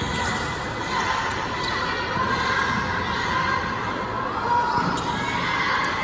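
Many voices shouting and cheering in an echoing gym during a girls' basketball game, with a basketball bouncing on the court.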